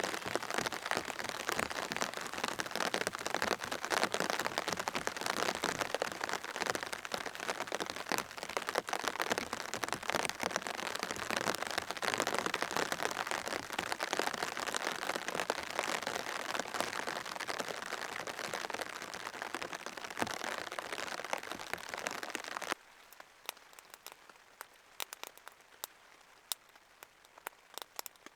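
Steady rain, a dense patter of many fine drops. About 23 seconds in it cuts off suddenly to a much quieter background with only scattered, separate drips.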